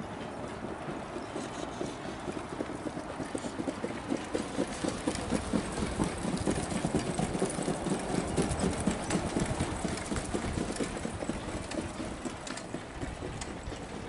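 Hoofbeats of two trotting harness horses pulling sulkies, a fast, even clatter of hooves on the track that grows louder as they pass and fades as they move away.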